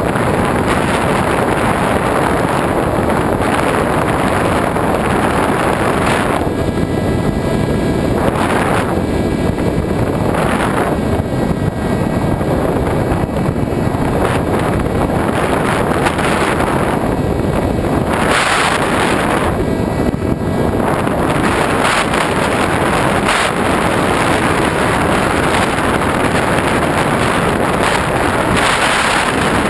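Loud, steady rush of wind over a GoPro camera carried on a 1.8 m EPP FPV radio-controlled glider in flight. The hiss eases and comes back several times as the airflow changes.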